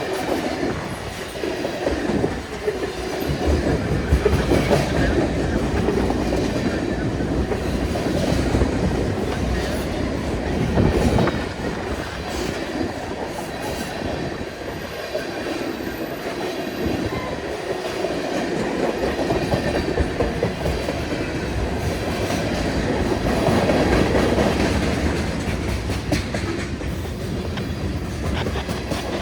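Freight cars of a CN train rolling past with a steady rumble, their wheels clacking over the rail joints.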